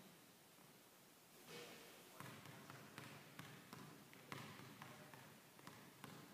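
Basketball being dribbled hard on a hardwood gym floor during a ball-handling drill. The bounces start about a second and a half in and run at about two to three a second.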